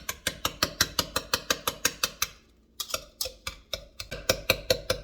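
A wire whisk beating softened butter and sugar in a bowl, clicking against the bowl about six or seven times a second, with a brief pause a little after two seconds in.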